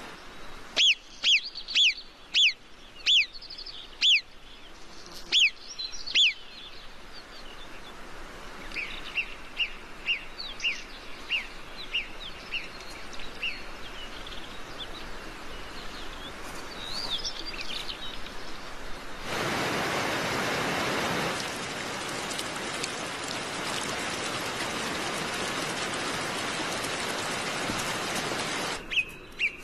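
Alpine marmots giving alarm whistles: a rapid series of about eight loud, sharp, falling whistles, then a fainter run of shorter calls. A repeated series like this is the marmots' warning of a fox. From about twenty seconds in, the steady rush of a mountain stream takes over and cuts off just before the end.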